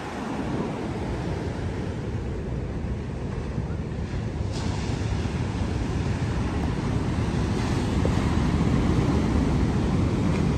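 Heavy storm surf breaking on a beach, a steady rush of waves, with wind rumbling on the microphone.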